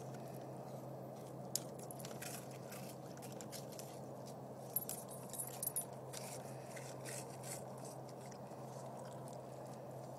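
Dogs snacking on Cheetos: scattered crunches and small clicks over a steady low hum, with a cluster of louder clicks about five seconds in.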